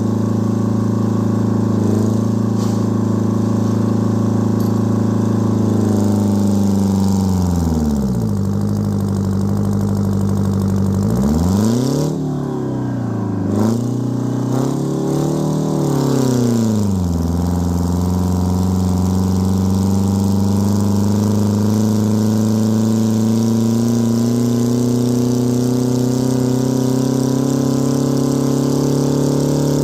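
Detroit Diesel 4-53 four-cylinder two-stroke diesel in an Oliver 1950 tractor running under load while discing. Its speed drops and recovers twice in the middle, then holds steady and slowly climbs.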